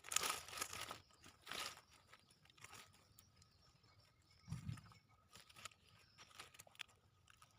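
Hands working dry soil and plant matter around a newly planted sapling: scattered crunching and rustling, with a single low thump about four and a half seconds in.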